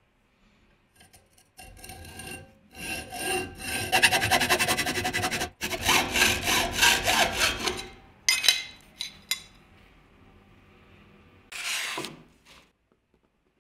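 Hacksaw cutting through an aluminium T-track held in a vise: a run of fast back-and-forth strokes with a ringing metallic tone, stopping about eight seconds in. A few light clicks follow, and near the end a short scrape of a wooden board sliding on a steel saw table.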